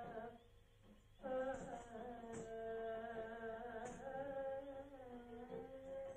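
Carnatic-style vocal music: a voice holds long, slowly bending notes, breaks off briefly just after the start and resumes about a second in. A few short high jingles sound along with it.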